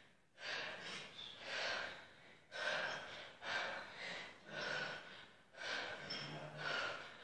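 Heavy, rhythmic breathing of an athlete working hard through squatting reps: forceful gasps and exhalations about once a second, some with a short voiced grunt.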